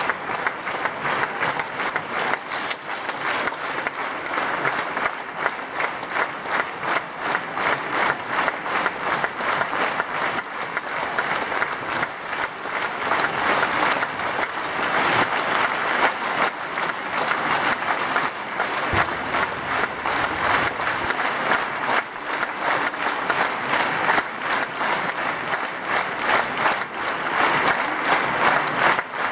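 Theatre audience applauding: dense, steady clapping from a large crowd, growing somewhat louder past the midpoint as performers come forward for their bow.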